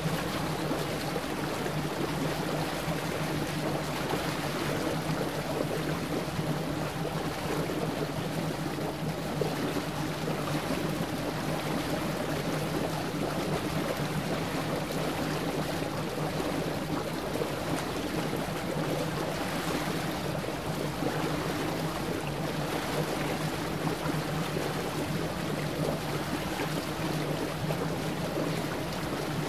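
Steady low drone of a large ship's engine over a continuous wash of sea water.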